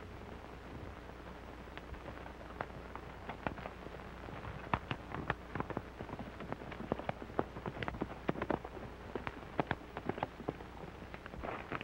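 Gunfire in a shootout: many sharp gunshots at an irregular pace, sparse at first and coming thick and fast from about four seconds in, over the steady hiss and low hum of a 1930s film soundtrack.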